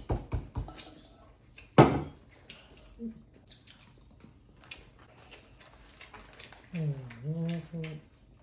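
Cutlery clinking and tapping against plates during fast eating, with a cluster of clicks at the start and the sharpest clink about two seconds in. Near the end a voice hums a drawn-out sound for about a second.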